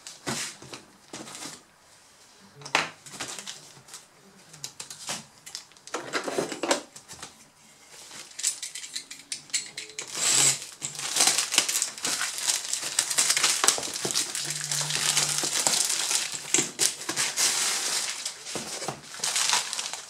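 Plastic courier mailer bag being handled and torn open, crinkling and rustling. A few light clicks and a short burst of crinkling come in the first half, then steady loud crinkling runs through most of the second half as the boxed part is pulled out.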